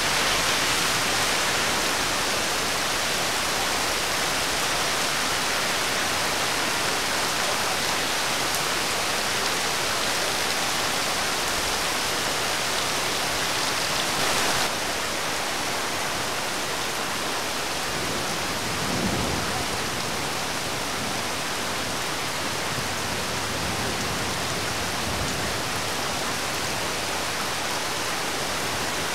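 Steady rain falling, an even hiss, which turns softer and duller abruptly about halfway through. A brief low rumble comes about two-thirds of the way in.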